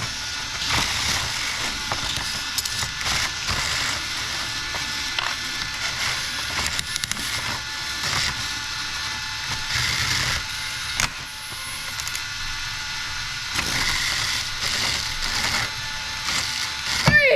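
Hexbug BattleBots toy robots fighting: small electric motors whirring, with plastic parts clicking and clattering as the bots shove and grab each other.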